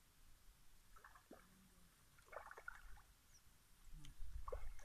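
Faint, intermittent splashing at the water's edge as a hooked fish is played close to the bank.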